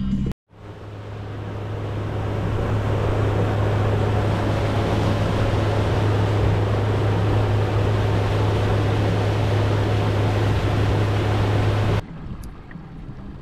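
Bass boat running at speed: the steady drone of its Yamaha 90 SHO four-stroke outboard under a loud rush of wind and water from the wake. After a brief drop-out the sound swells up over about two seconds, holds steady, and cuts off sharply about a second before the end, leaving a much quieter background.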